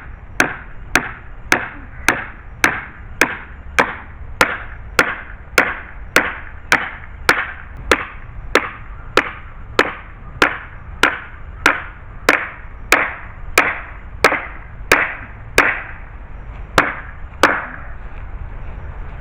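Steady hammering: a long run of evenly spaced hammer blows, just under two a second, stopping shortly before the end.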